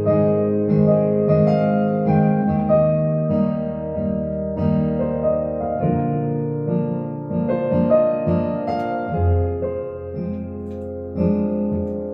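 Yamaha CVP-805 Clavinova digital piano playing in its piano voice: a slow melody over held chords and a bass line, with a last chord struck near the end and left to ring.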